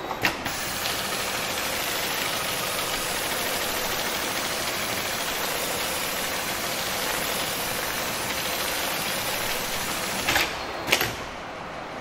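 HighTex MLK500 automatic seat-belt sewing machine running steadily for about ten seconds while it stitches a bar-tack cross-stitch seam through seat-belt webbing. There is a click at the start and two sharp clacks near the end as the sewing stops and the work clamp lifts.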